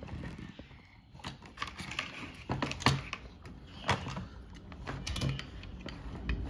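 Scattered clicks and taps of toy cars being handled and set into a plastic toy race track and its launcher.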